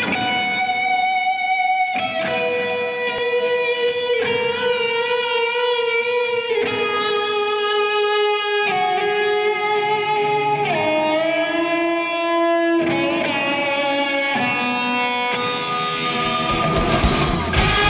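Electric guitar played through a Marshall amplifier: long sustained lead notes, changing every second or two, with a slide down about eleven seconds in and wavering vibrato on held notes soon after. Near the end it gives way to louder, denser chords.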